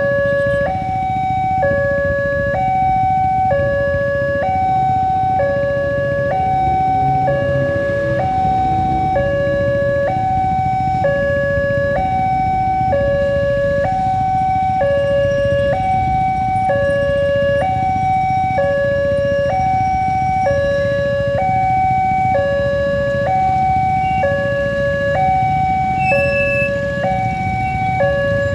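Electronic railway level-crossing alarm ringing steadily, alternating between a lower and a higher tone in a repeating two-tone pattern, sounding while the barrier is down to warn of an approaching train.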